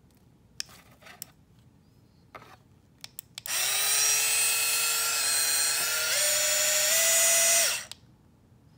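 Battery-powered cordless hand mixer's small electric motor whirring steadily for about four seconds, stepping up in pitch twice before it cuts off, after a few plastic clicks as the unit is handled and switched on.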